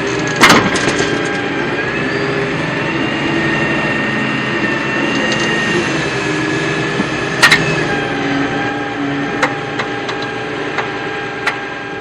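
Small electric motors of radio-controlled toy construction vehicles whining steadily, the pitch wavering a little. Two sharp clacks come about half a second in and about seven and a half seconds in, with lighter ticks in the later seconds.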